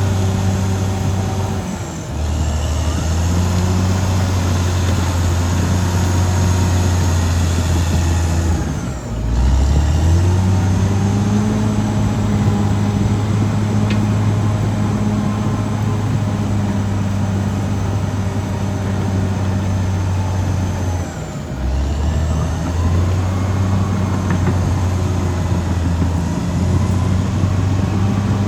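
Caterpillar D6R XL bulldozer's diesel engine running hard, a steady low drone whose pitch briefly drops and climbs back three times: near the start, about a third of the way in, and about three quarters of the way through.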